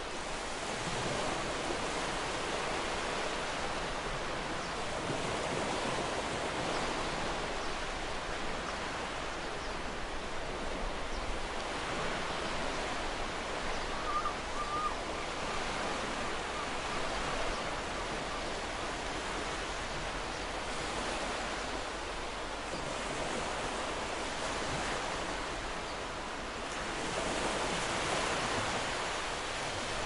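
Ocean waves washing onto a sandy beach: a steady rushing wash that swells and eases every few seconds. A brief faint chirp sounds about halfway through.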